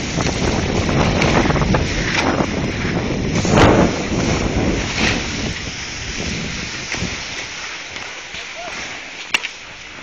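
Wind rushing over the camera microphone and the scrape of sliding on snow during a downhill run. The rushing is loud at first and eases off over the second half as the run slows. A sharp click comes near the end.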